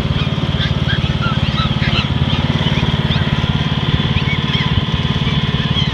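Riding lawn mower engine running steadily, with short high yips and squeaks from puppies scattered over it.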